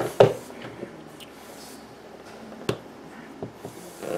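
A small cardboard game box being worked open by hand: a few sharp taps and knocks of cardboard, the loudest just after the start.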